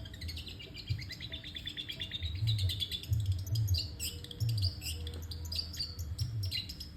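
Long-tailed shrike (cendet) singing without a break: fast runs of short, varied chirping notes, some falling in pitch in rapid series, with low dull pulses underneath.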